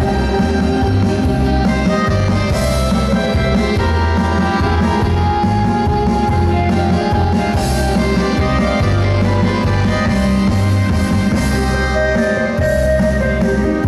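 Instrumental folk dance music playing loudly, with held melody notes over a steady, repeating bass.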